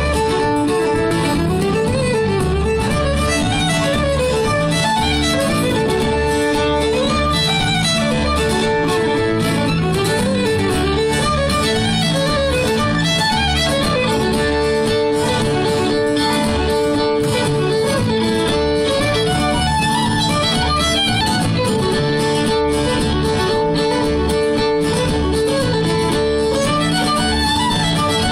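Live acoustic string band playing a dance tune: a fiddle leads the melody over strummed acoustic guitars, and an upright bass plucks a steady beat.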